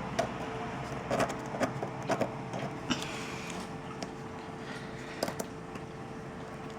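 Small clicks, taps and a brief scrape of a sharp blade prying at a phone's glass camera lens cover, over a steady faint hum.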